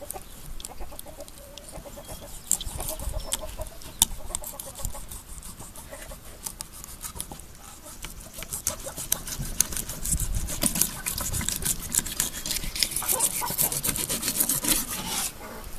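Fillet knife cutting into a bluegill on a plastic cutting board: a run of quick crackling clicks and scrapes as the blade works through scales and skin, sparse at first and thicker in the second half.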